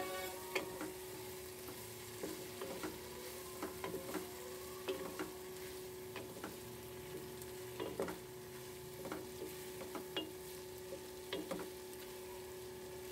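Chicken and chopped vegetables sizzling in a frying pan as a wooden spatula stirs them, with irregular scrapes and knocks of the spatula against the pan over a steady low hum.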